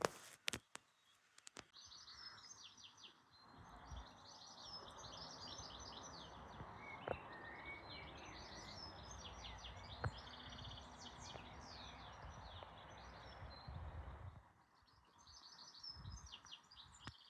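Small birds chirping and twittering in quick high notes, over a steady rushing background hiss that fades out about three-quarters of the way through. A few sharp taps sound near the start, and single ones come about 7 and 10 seconds in.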